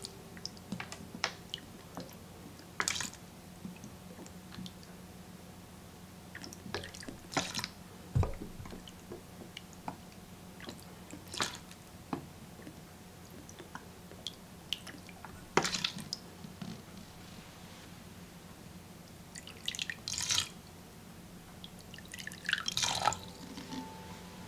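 Shiro-dashi poured from a bottle into a metal tablespoon and tipped onto raw rice in a rice cooker's inner pot, spoonful after spoonful. The result is scattered small trickles, drips and light clicks, a dozen or so with pauses between them.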